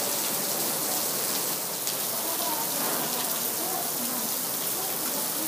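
Heavy rain from a sudden downpour falling steadily, an even hiss of drops striking the glass roof panels overhead and the wet paving.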